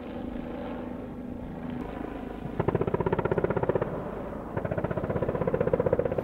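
Bell OH-58D Kiowa Warrior helicopter flying overhead: a steady engine and transmission drone, then the rapid, even beat of its rotor blades comes in about two and a half seconds in, eases briefly, and returns near the end.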